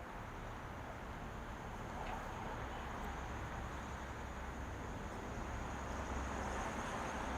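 Steady outdoor ambience: an even hiss over a low rumble that slowly swells, with a thin, steady high-pitched tone running through it.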